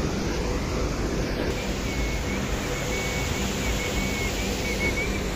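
Steady rush of water pouring over rocks at a waterfall, with a faint, wavering high tone from about two seconds in until near the end.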